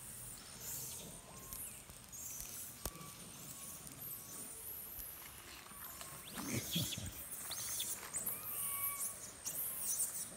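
Wild animal calls: many short high chirps, with a few brief arching whistled calls in the second half. A sharp click comes about three seconds in, and a scuffing handling noise about six and a half seconds in.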